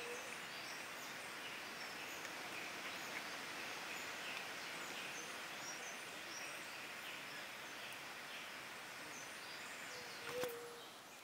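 Outdoor forest ambience: a steady background hiss with scattered faint, high bird chirps. A short, sharp click with a brief tone comes about ten seconds in.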